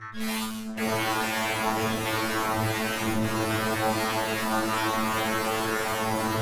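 A long, steady, low droning tone with many overtones under a layer of hiss, opening with a brief noisy rush: heavily effected, distorted logo audio.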